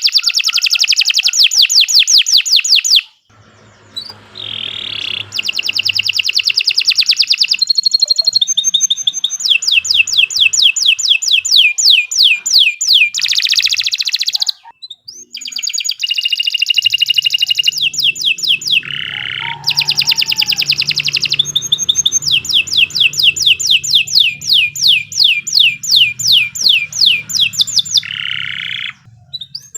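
Domestic canary singing long, fast trills of rapidly repeated high notes, phrase after phrase with brief pauses between them.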